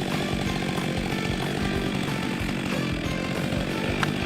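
Stihl MS 462 chainsaw, a 72.2 cc two-stroke engine, running steadily.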